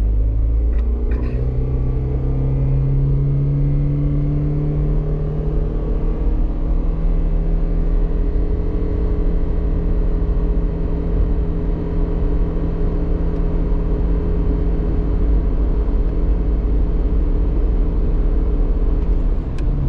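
Toyota Prius accelerating at full throttle from a standstill, heard from inside the cabin. The petrol engine's drone rises in pitch over the first few seconds and then holds at a steady pitch while the car keeps gaining speed, as the hybrid's continuously variable drive keeps the engine at high revs. A steady low road rumble runs beneath it.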